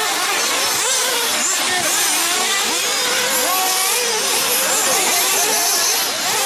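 Several radio-controlled truggies racing around a dirt track. Their small engines rev up and down at the same time, so several pitches glide and cross over one another without a break.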